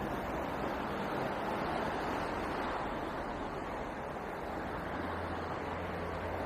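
Steady noise of road traffic, tyres and engines blending into a continuous rush, with a low engine hum growing stronger in the last second or so.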